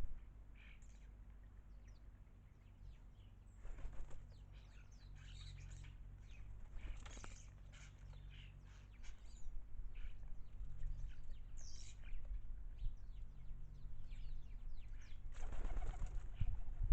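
Small garden birds bathing: wings flutter and splash in the water in a few short bursts, the longest near the end. Scattered high chirps sound between them.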